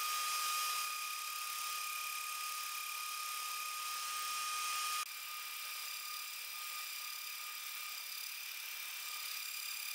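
High-speed spindle of a hobby CNC mill whining steadily over a hiss while milling AlMg4.5Mn aluminium plate. The level drops suddenly and the tone shifts slightly about five seconds in.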